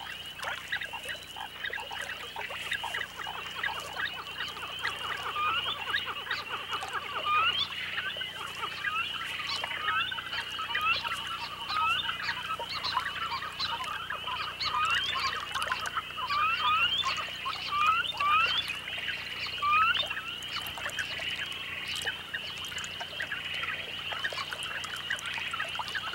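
Many birds calling, short quick rising chirps overlapping one another, over a steady high hiss.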